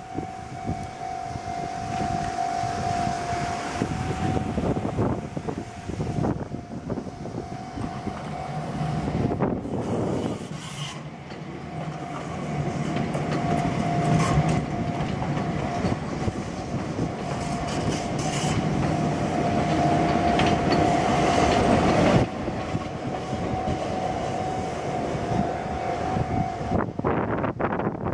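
A train running on rails, with a steady whine held through most of it that stops near the end.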